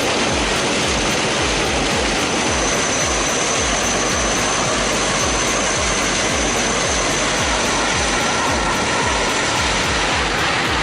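Helicopter running close by: a steady low pulsing beat from the rotor blades under a constant high turbine whine, with a dense wash of engine and rotor-wash noise.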